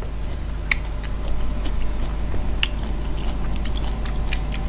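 Close-miked chewing of a mouthful of spicy papaya salad, with scattered short wet crunches and mouth clicks over a steady low hum.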